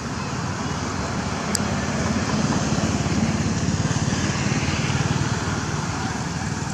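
Steady outdoor background rumble with a higher hiss, swelling a little in the middle.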